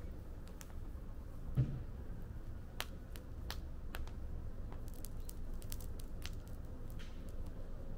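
Fire in a fire pit crackling: scattered sharp pops, a few a second and busiest in the second half, over a steady low rumble. A single dull thump comes about one and a half seconds in.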